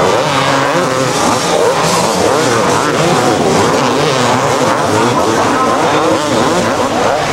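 Several two-stroke supercross motorcycles racing together, their engines revving up and down at overlapping pitches.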